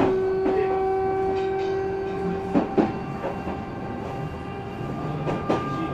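Odakyu 3000 series electric train, with fully enclosed traction motors and a Mitsubishi IGBT inverter, running along the line. A steady whine fades about two and a half seconds in, and rail-joint clicks come through irregularly.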